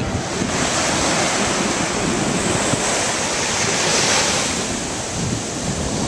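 Ocean surf washing onto the beach in a steady wash of breaking waves, with wind buffeting the microphone.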